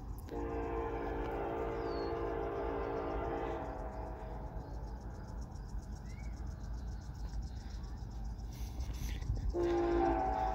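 Locomotive air horn of approaching BNSF 9221, sounding a chord in one long blast of about three seconds, then a short blast near the end, over a steady low rumble.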